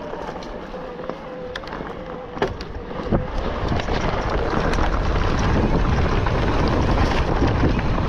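Electric mountain bike rolling down a gravel track: tyres crunching over loose stones, with sharp clicks and knocks from stones and the bike, and wind buffeting the microphone. A thin steady whine fades out in the first few seconds, and the rumble and wind grow louder from about three seconds in.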